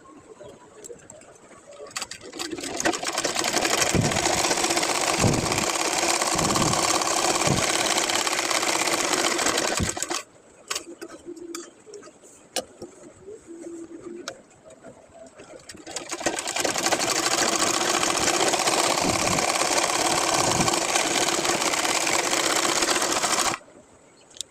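Sewing machine stitching in two runs of about eight seconds each. Each run picks up speed over a second or two and stops abruptly, with a few clicks in the pause between.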